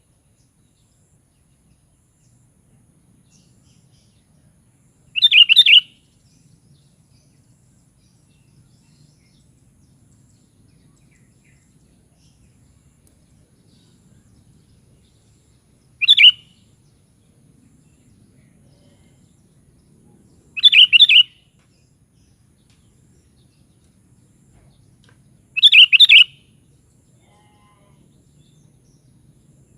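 Sooty-headed bulbul (kutilang) giving short, bright chirping calls: four brief bursts, several seconds apart.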